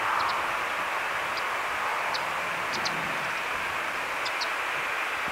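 Embraer Praetor 600 business jet's twin Honeywell HTF7500E turbofans running at low taxi power, a steady rushing noise from the distant jet. A few short high chirps sound over it.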